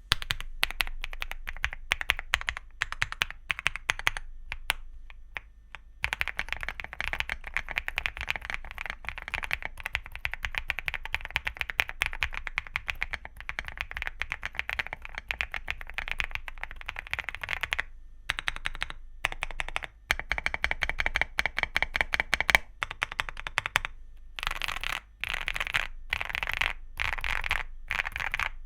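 Typing on a Womier MT75 mechanical keyboard with Womier New POM linear switches and MOA-profile double-shot PBT+PC keycaps: fast runs of rapid keystrokes with a few short pauses, sparser at first.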